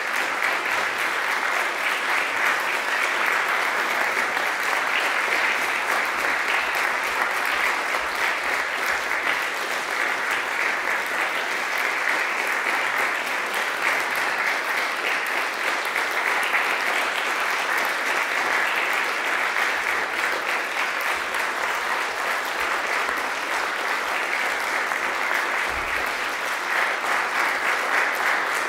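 Audience applauding, a dense, even clapping that keeps up steadily without a break.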